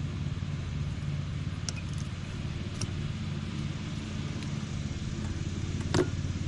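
Steady low mechanical drone, like a motor or engine running, with a few light clicks and one sharper clink about six seconds in.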